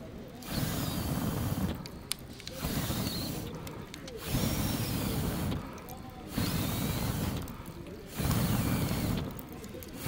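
Wood fire in a metal fire stand being blown through a fire-blowing pipe: five puffs, each a bit over a second long with short pauses between, each one a low rush of air and flame. A few sharp crackles from the burning wood fall between the puffs.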